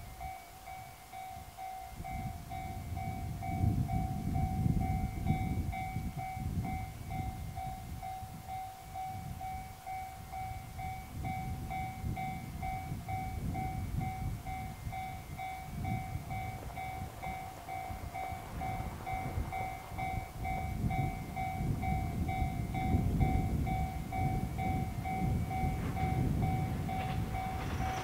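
Japanese level-crossing warning bell ringing steadily, a fast repeating electronic ding, over a low, fluctuating rumble. In the last few seconds an approaching express electric train starts to be heard.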